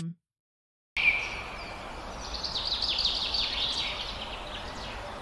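Birdsong over a steady outdoor ambience hiss, starting about a second in: a short falling call, then a bird repeating a fast run of down-slurred chirps.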